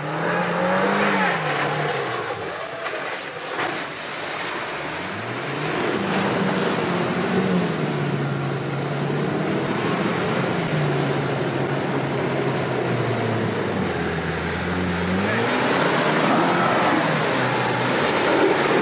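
New-generation Land Rover Defender's engine revving up and down as it drives through deep muddy water, with water and mud splashing under the tyres. The revs are highest near the end.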